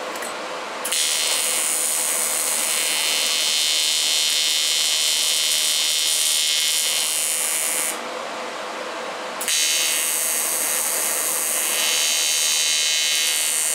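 AC TIG welding arc on 1/8-inch aluminum from a PrimeWeld 225X, buzzing steadily as tack welds are laid. One arc starts about a second in and runs about seven seconds; after a short break a second arc strikes about nine and a half seconds in.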